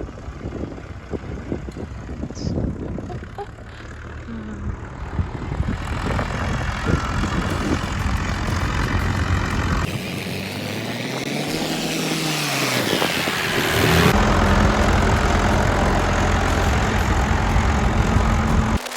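Case backhoe's diesel engine working. Its pitch rises and falls over a few seconds about halfway through, then it runs steadily at higher revs and cuts off suddenly near the end.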